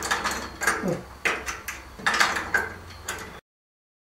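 Metal clanks and rattles from handling the steel parts of a sawmill's cable-and-pulley lift system: about half a dozen sharp knocks over three seconds, then the sound cuts off suddenly.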